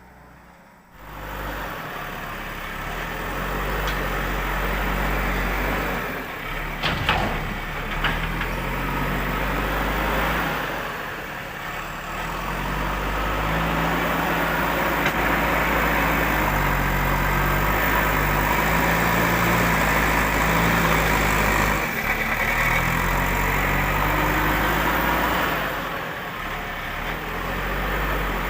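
Heavy diesel engine of construction machinery running, its speed stepping up and down as it works. The engine sound cuts in about a second in and grows louder through the middle.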